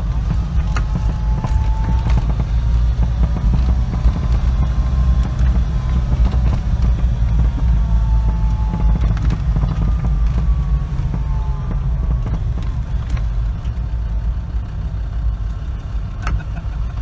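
A vehicle driving on a wet road, heard from inside the cab: a steady, heavy low rumble of engine and road noise, with a faint whine that rises and falls in pitch.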